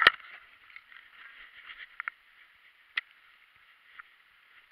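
Knocks and rattles from a fat-tire mountain bike, picked up by a camera mounted on the bike: a loud clatter right at the start, then a few sharp clicks about two, three and four seconds in over a faint, thin hiss.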